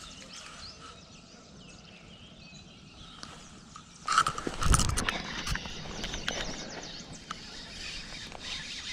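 Birds chirping faintly, then about four seconds in a sudden loud splash as the lure lands and a bass grabs it straight away, with splashing commotion continuing afterwards.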